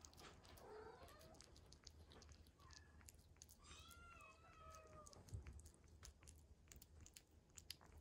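A Minuet kitten chewing and lapping soft wet weaning food, with many small quick wet clicks. Kitten mewing twice: a short mew under a second in and a longer, higher mew about four seconds in.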